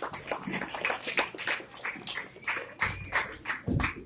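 Scattered applause from a small audience, the separate hand claps distinct, a few per second. A few low thuds come near the end.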